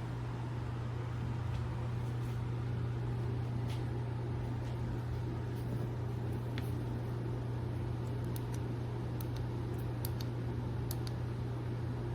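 A steady low hum over a faint even hiss, with a few faint ticks.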